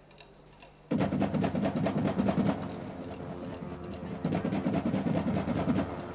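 A marching band bursts into playing about a second in, loud and sudden, led by a fast, dense drumline rhythm of snare and bass drums with held band notes underneath.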